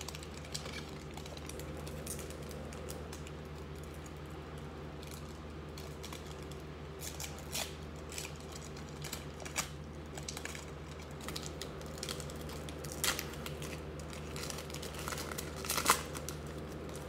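Foil trading-card pack crinkling and crackling in the fingers as its stubborn seal is worked at, with the crackles coming thicker and louder near the end as the wrapper tears open.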